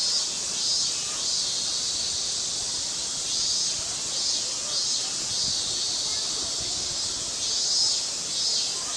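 Steady high-pitched insect chorus that swells and fades every second or so.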